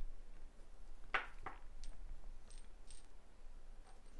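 Silver Queen's Beasts bullion coins clinking against one another as they are handled and set down: two sharp clinks about a second in, then a few lighter taps with a brief high metallic ring.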